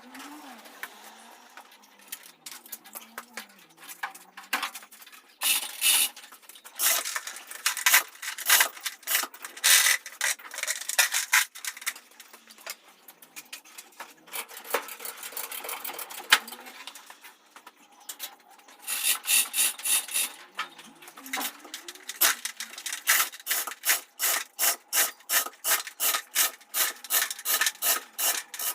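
Hand winch being cranked to lift a car body, its ratchet clicking in rapid even runs with short pauses between them.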